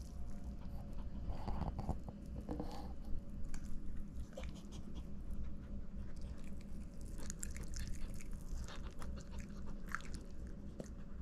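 A chihuahua biting and chewing pieces of chicken, with irregular small crunches and clicks.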